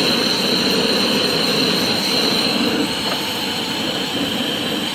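Trangia gas burner running on propane under a pot: a steady hiss with a constant high tone.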